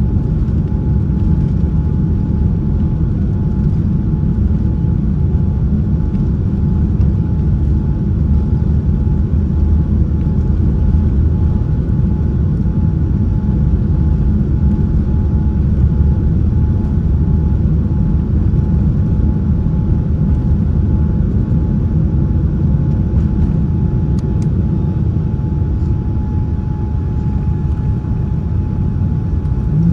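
Steady cabin noise of a Boeing 787-9 airliner heard from a window seat: a loud, even rumble of engines and airflow with a thin steady whine over it.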